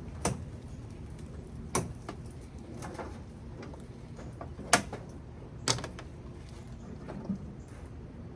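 Sharp metal knocks and clanks, six of them spread unevenly, the loudest a little past the middle, from tools and parts as a microwave oven is dismantled. A steady low hum runs underneath.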